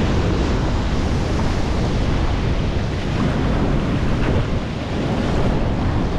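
Ocean surf washing on a rocky shore, with wind buffeting the microphone.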